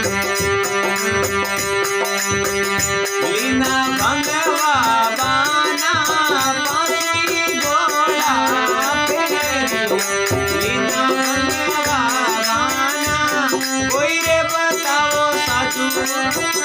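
Instrumental break in a folk devotional song: a lead melody that bends and wavers in pitch, over a steady percussion beat with rattling.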